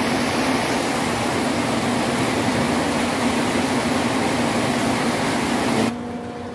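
Heavy tropical downpour: a dense, steady hiss of pouring rain. It cuts off suddenly about six seconds in, leaving a much quieter background with a faint steady hum.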